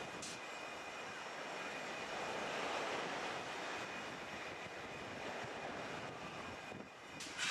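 Steady rush of wind and choppy sea, swelling about three seconds in and dipping briefly shortly before the end.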